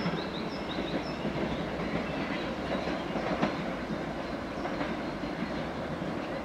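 Freight train rolling away along the track: a steady rumble of wagons on the rails, with wheels clacking over rail joints a few times.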